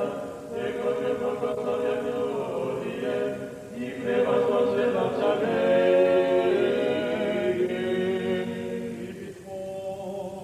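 Unaccompanied chanting of a Russian Orthodox church service: voices holding long notes that step from pitch to pitch. There is a short break a little under four seconds in, and the chant grows quieter near the end.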